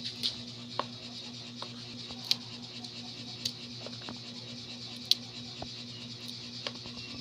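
White corn kernels being shelled off the cob by hand and dropping into a plastic basin: scattered, irregular clicks and taps, the sharpest about five seconds in, over a steady low hum.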